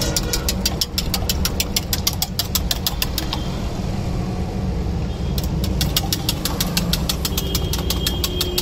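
Metal whisk beating raw egg in a stainless steel mug: a rapid, even clinking of metal on metal, about seven strokes a second, which stops for about two seconds midway and then resumes. A steady low rumble runs underneath.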